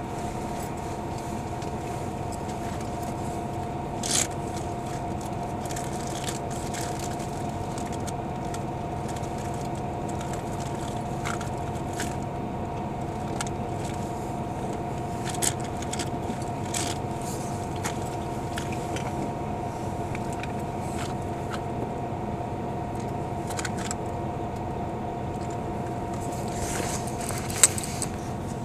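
Highway bus idling while parked: a steady engine and air-conditioning hum holding a few even tones. Occasional short clicks and knocks break through it, the sharpest one near the end.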